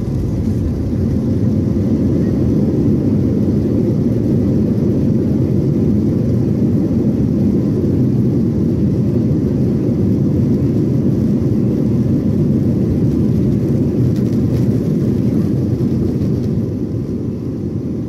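Boeing 737-800 on its landing rollout, heard in the cabin over the wing: a loud, steady, low roar from its CFM56 engines and the aircraft rolling. The roar builds in the first second or two and eases off near the end as the aircraft slows.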